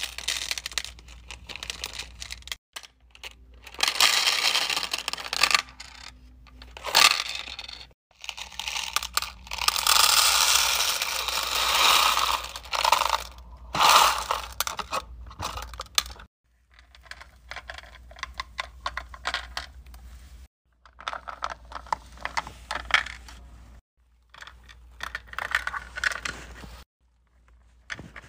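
Loose faux-pearl and clay beads clattering and rattling in a clear plastic organizer as fingers stir and scoop through them. The sound comes in stretches of a few seconds that break off abruptly.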